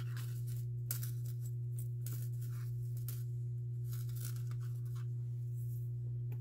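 A steady low hum with faint, light clicks and rustles of a thin metal bracelet and chain being handled.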